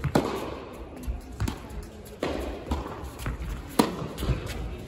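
Tennis rally: sharp pops of strings on the ball, loudest from the near player's racket at the start and again near the end, with the far player's returns and ball bounces between, echoing in a large indoor hall.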